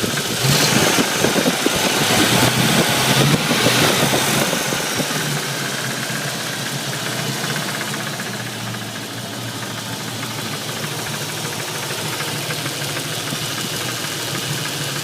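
Ford 302 HO small-block V8, warmed up, running with a rapid knocking; louder for the first four seconds or so, then settling to a steadier, slightly quieter idle.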